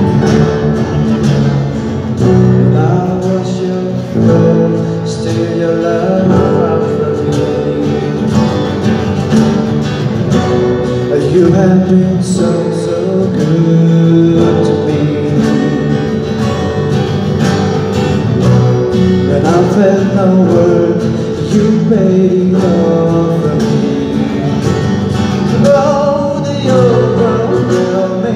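Live band playing a song through a PA: strummed acoustic guitars over keyboard, bass and percussion, with a singing voice.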